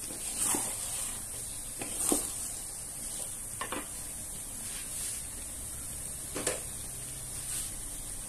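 Two wooden spatulas scraping and tossing fried noodles in a wok, about six strokes roughly a second and a half apart, over a steady sizzle.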